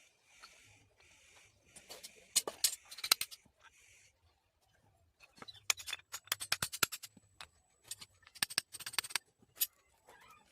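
Hand work on parts during an engine repair: a few short scraping or brushing sounds, then a run of quick, sharp clicks and taps in irregular clusters.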